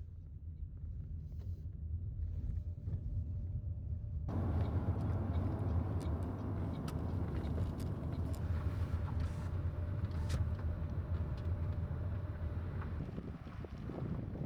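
Car driving: a steady low road rumble, muffled at first, that turns brighter with more hiss about four seconds in.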